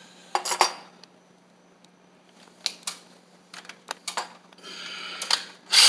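Scattered clicks and knocks from hard objects being handled and picked up while getting out tools, with a louder clatter near the end.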